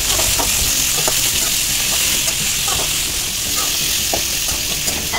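Chopped shallots, onions, tomato and green chillies sizzling steadily in hot coconut oil in an aluminium wok. A metal slotted spoon scrapes and clicks against the pan now and then as they are stirred.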